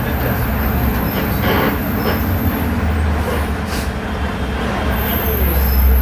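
Natural-gas city bus on a Volksbus 17-230 OD GNV chassis running, a steady low engine rumble with a few faint squeaks, swelling louder near the end.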